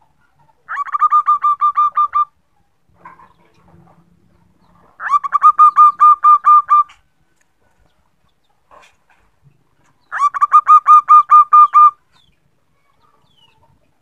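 Female zebra dove (perkutut) calling: three bouts of about ten quick, evenly spaced staccato coos, each bout lasting about a second and a half, a few seconds apart.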